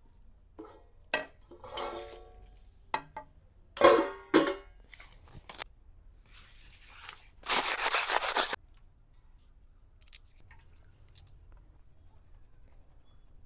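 Metal kitchen utensils clinking and knocking against a cooking pot, several strikes ringing briefly, then about a second of harsh rasping scrape near the middle.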